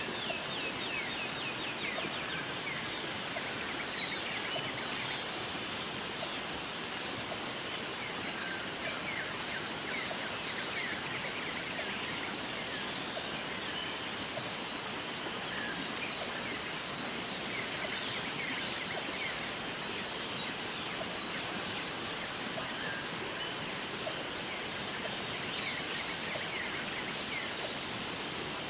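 Jungle waterfall ambience: the steady rush of falling water under many short, busy bird calls, with a high buzz that comes and goes every few seconds.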